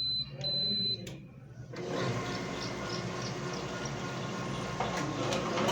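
Two short high beeps from a Canon iR 1024 copier's control panel, then about two seconds in the machine starts up and runs with a steady mechanical noise and faint regular ticking.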